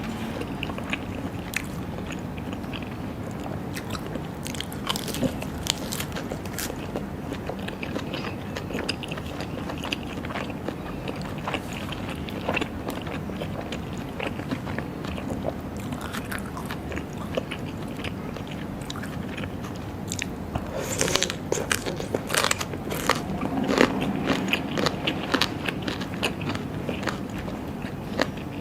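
Close-miked chewing and biting of raw seafood, with many short wet clicks. The chewing gets busier and louder about twenty seconds in.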